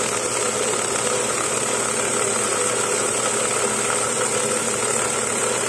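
Lapidary saw's spinning blade cutting into a quartz crystal: a steady grinding with a strong high hiss over the machine's even hum.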